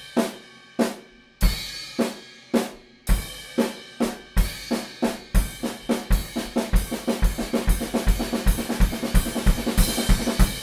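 Drum kit playing a six-note fill over and over: a crash cymbal hit together with the bass drum, two snare strokes, the other crash with the bass drum, two snare strokes. It starts slow and speeds up steadily, the cymbals ringing over the strokes.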